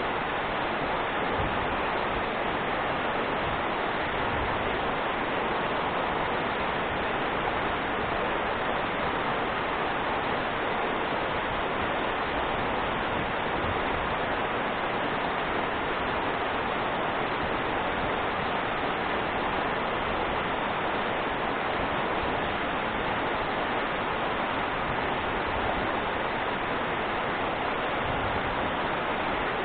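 Steady rushing of falling water from a waterfall, an even roar with no breaks or changes.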